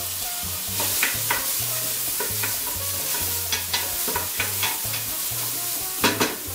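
Chopped onion and garlic sizzling in hot oil in a stainless steel pot while a wooden spoon stirs them, with frequent short scrapes of the spoon against the pot. The onion is being sautéed until translucent as the base of the sofrito.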